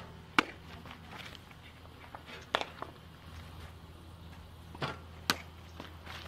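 Several sharp pops of softballs smacking into a catcher's mitt, a second or two apart, over a steady low background hum.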